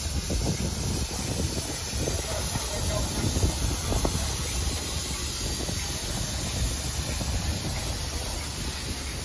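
Fowler steam roller in steam, giving off a steady hiss of escaping steam, with an uneven low rumble of wind on the microphone underneath.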